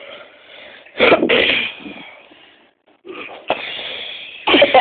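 A person's stifled sneeze, done while holding the breath: a sudden sharp burst about a second in that trails off into breathy noise. A long breathy hiss follows later.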